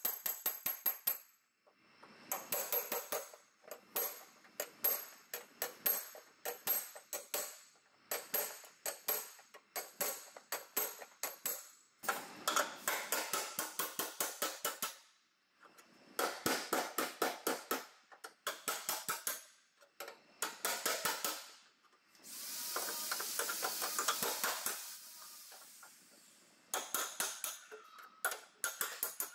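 Hammer rapidly striking a steel chisel held against car-body sheet metal, in quick runs of ringing metallic blows with short pauses between. About three-quarters of the way through, a few seconds of steady hiss.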